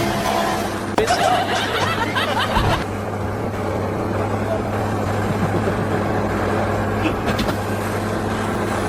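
Steady low machine hum, with a short stretch of clatter starting about a second in.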